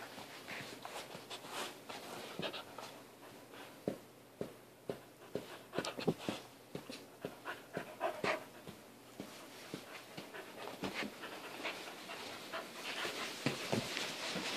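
Malamute puppy panting close up, a quick, uneven run of short breaths.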